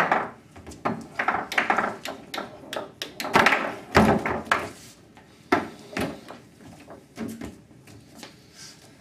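Foosball table in play: the ball cracking against the plastic men and the cabinet walls and the rods knocking, as irregular sharp clacks in clusters, with the loudest flurry a little before the middle.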